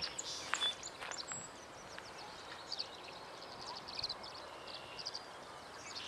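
Tree swallows calling: a scatter of short, high chirps and twitters through the whole stretch.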